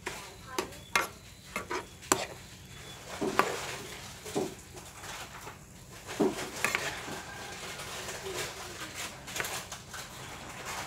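A spatula stirring and tossing beef, cucumber and carrot in a nonstick wok, with irregular knocks and scrapes against the pan over a light sizzle.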